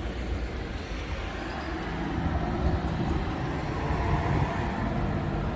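A heavy vehicle's engine running in the street: a steady low hum with a rumbling haze, growing a little louder past the middle.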